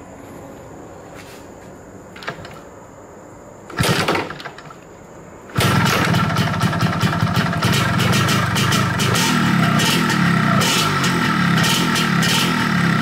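A Yamaha RXZ 135's single-cylinder two-stroke engine being started. It fires briefly about four seconds in, then catches a second and a half later and keeps running, still cold.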